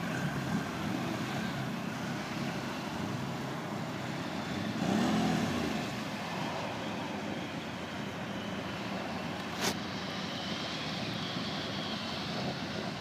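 Off-road vehicle engine running with a steady drone, swelling briefly about five seconds in; a single sharp click comes near ten seconds in.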